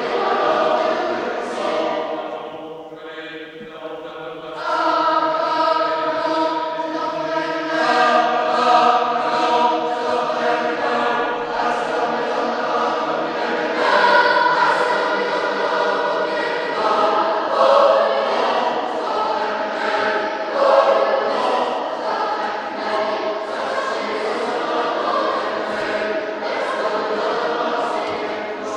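Boys' choir singing in a church, many voices together. About two seconds in the singing drops quieter for a couple of seconds, then comes back fuller and louder.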